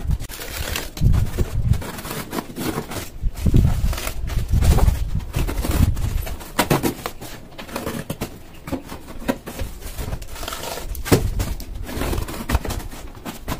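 Cardboard box being cut with scissors and a box cutter: irregular crunching and scraping cuts through the corrugated board, with knocks and rustles as the box is handled.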